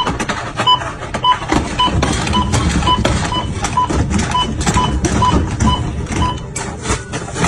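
Supermarket checkout barcode scanner beeping in quick succession, about two short beeps a second, as items are scanned at high speed. Under the beeps runs a steady clatter of knocks as goods are slid across the scanner and dropped on the counter.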